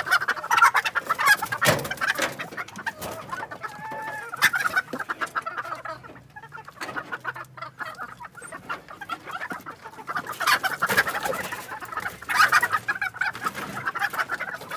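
Chickens cackling and squawking in alarm as a person tries to catch a bird in their coop. There are loud bursts of rapid calling near the start and again from about ten seconds in, with quieter clucking between.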